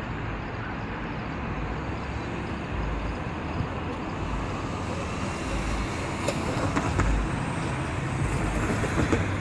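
Steady road traffic noise: an even hiss with a low, uneven rumble underneath.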